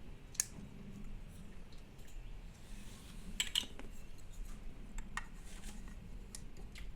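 Scattered light clicks and taps of small toys being handled, with a quick cluster of them about three and a half seconds in, over a faint steady low hum.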